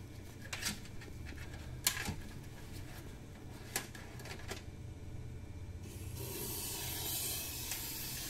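A few light clicks and taps from handling the cavity-wax spray hose, then, about six seconds in, a steady hiss as the aerosol can sprays wax through its hose and four-way nozzle.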